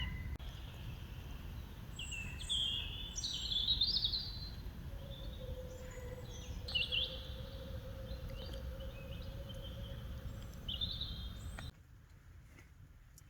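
Songbirds singing in short high phrases over a steady low rumble. Near the end the rumble cuts off abruptly and it goes much quieter.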